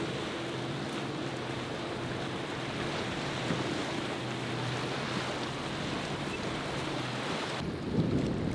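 Boat engines droning steadily under the rushing wash of surf and spray as a sport-fishing boat pounds through waves, with wind on the microphone. Near the end the sound changes abruptly to a gustier wind rumble.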